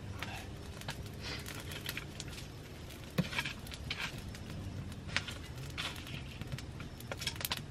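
Wood fire crackling and popping as it is stoked with a stick, with scattered small cracks and a sharper crack about three seconds in.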